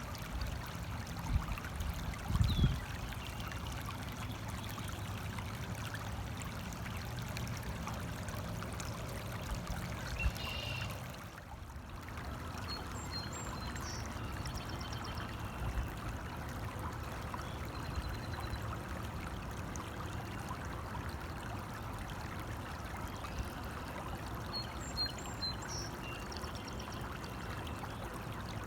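Stream water running with a steady babble. A few short, high chirps come through around the middle and near the end.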